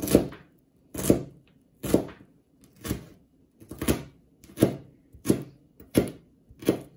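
Kitchen knife chopping celery on a plastic cutting board: nine slow, even chops, about one a second.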